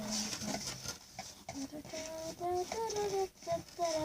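A girl humming or crooning a wordless little tune: a low held note, then a run of higher notes that step and glide in the second half.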